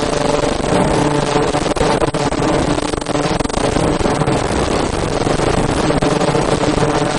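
Automatic fish-shaped mask forming machine with ultrasonic welding, running: a steady mechanical din with a constant hum and many quick clicks.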